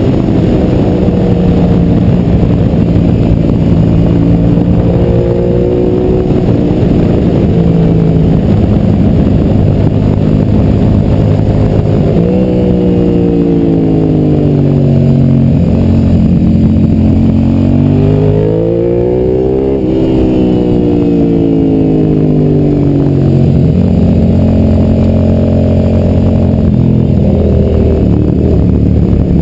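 Suzuki SV motorcycle's V-twin engine under way, with wind rush on the microphone. It pulls steadily, drops in pitch as the bike slows about twelve seconds in, rises again under acceleration, eases off once more, then settles into a steady pull.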